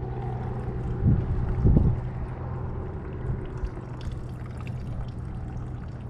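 Water lapping and sloshing against a kayak hull, with two louder sloshes about a second and nearly two seconds in, over a low wind rumble and a steady low hum.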